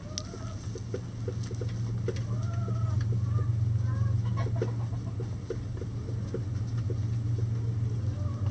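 Backyard hens clucking softly, with several short rising-and-falling calls and scattered light ticks, over a steady low hum that grows louder over the first few seconds.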